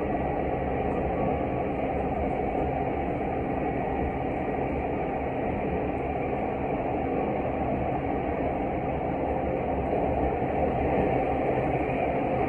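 Interior running noise of a Tokyu 5050 series electric commuter train at speed: a steady rumble of wheels and running gear on the rails, growing a little louder near the end.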